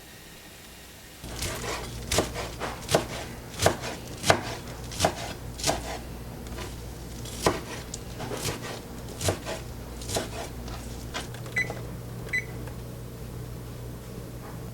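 Kitchen food preparation: a run of sharp knocks, about one every three-quarters of a second, over a steady low hum that starts about a second in. The knocks stop and give way to two small high clinks near the end.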